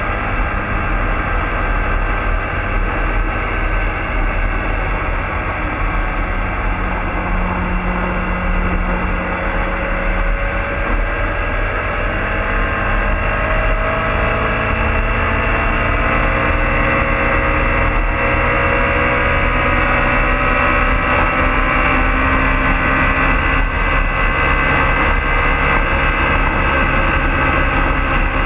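BMW sport-touring motorcycle's engine running under hard acceleration at high speed, heard from the rider's seat. Its note climbs slowly and steadily through the second half as the revs rise, over a rush of wind noise.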